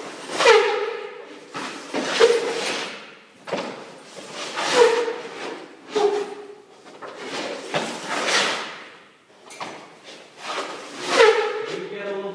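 Hockey goalie's skate blades pushing and scraping across the rink surface in a post-to-post drill. There are about six loud scrapes, each dropping in pitch and ringing on briefly.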